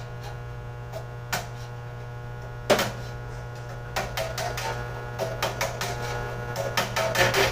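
Steady low electrical hum with scattered sharp clicks and taps of hand-tool work. The taps come more often from about four seconds in.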